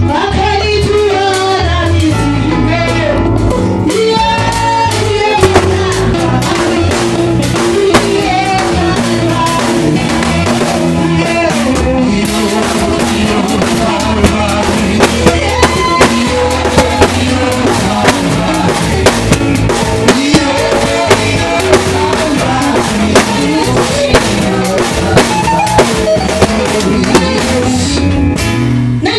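Church worship music with drum kit, guitar and singing, loud and continuous, with sharp drum hits standing out in the second half.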